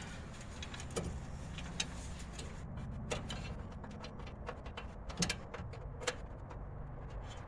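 Scattered light clicks and taps of a radiator mounting screw and hands working as the screw is started by hand into the radiator support, over a steady low hum.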